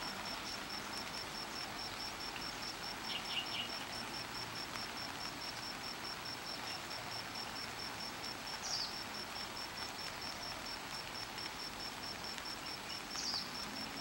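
An insect chirping in a steady high pulse, about four to five times a second, over a background hiss. A few short high chirps break in: a quick group of three about three seconds in, then single ones near the middle and near the end.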